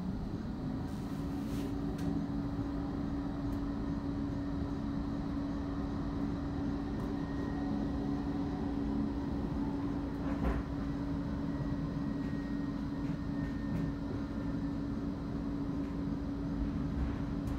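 Bombardier Flexity 2 tram running, heard from inside the passenger saloon: a steady hum from its drive sets in about a second in and holds over the rumble of the wheels on the rails. A single sharp knock comes about ten and a half seconds in.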